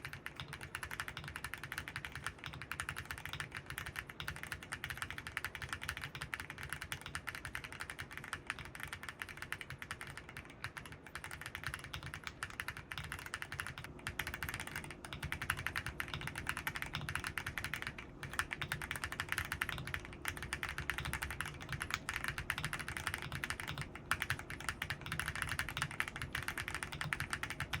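Continuous typing on an Akko MonsGeek M1W V3 aluminium 75% mechanical keyboard fitted with Akko Piano V3 Pro switches and a non-flex-cut PCB: a dense, steady run of keystrokes.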